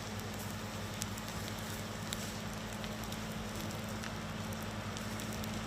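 Bushfire burning, with a few scattered crackles over a steady rushing noise and a low steady hum.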